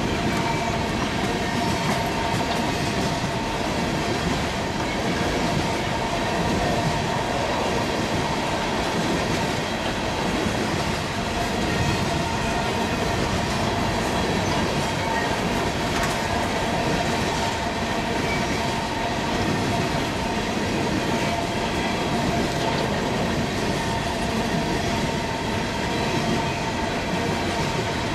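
Coal train of open-top hopper cars rolling past: a steady rumble of steel wheels on rail, with a few steady high tones from the wheels running through it.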